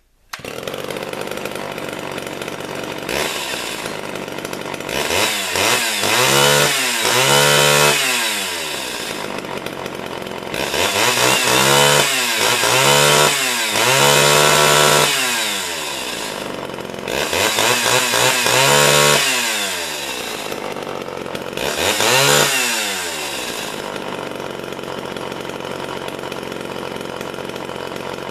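Homelite two-stroke chainsaw idling, then revved up and let back down in four spells of throttle blips, settling to idle between them. Its carburettor jets have been leaned out a little and the idle speed raised because it tended to stall at idle.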